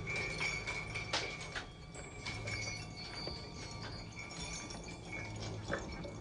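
Eerie film sound design: hanging metal chains clinking over a low steady drone and a thin, high held tone, with sharp clinks about a second in and again near the end.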